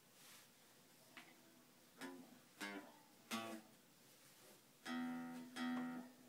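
Sparse music on a plucked string instrument: a few single notes, each ringing briefly, then two fuller strummed chords near the end, which are the loudest part.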